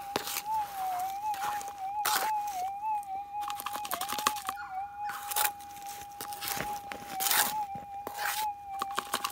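Minelab GPX 6000 gold detector's threshold tone, a steady hum through its speaker, wobbling in pitch several times as a plastic scoop of dirt is swung over the Coiltek Goldhawk coil to find a tiny gold piece. Over it come sharp rattles and scrapes of dirt and gravel shifting in the plastic scoop.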